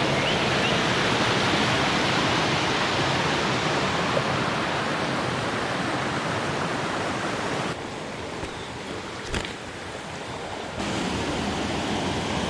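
Steady rush of a stream or waterfall, falling quieter for about three seconds past the middle, with a single sharp tick during that lull.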